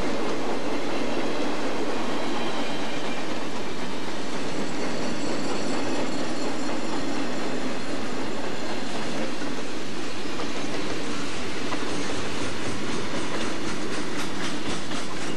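Freight train of boxcars and covered hoppers rolling past close by: a steady rumble and hiss of steel wheels on rail, with a faint high squeal from the wheels. Toward the end, sharp rhythmic clicks as the car wheels pass over rail joints.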